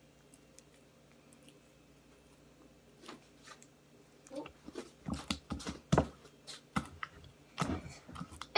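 Sticky homemade glue slime being stirred and squished. A string of irregular wet squelches and small sticky clicks starts about three seconds in and grows busier.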